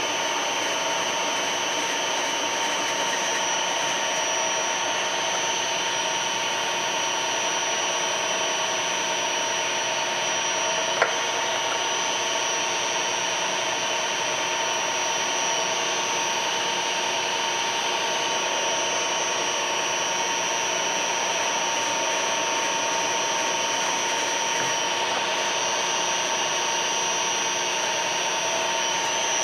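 Sharp LMV50 vertical milling machine running steadily, its spindle drive giving an even whine with several fixed high tones, while drilling holes in a brass vise jaw. A single sharp click about eleven seconds in.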